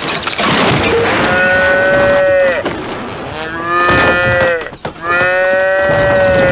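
Cows mooing: three long, drawn-out calls, the middle one shorter. A rushing hiss fills the first second.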